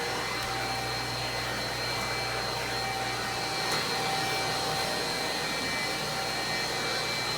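A 1952 Electrolux XX canister vacuum cleaner running steadily while vacuuming up pine needles, its motor giving a constant whine over the rush of air.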